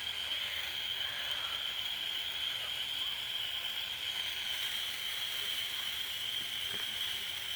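A steady, high-pitched insect chorus on one unbroken pitch, over faint background hiss; no firework pops or bangs are heard.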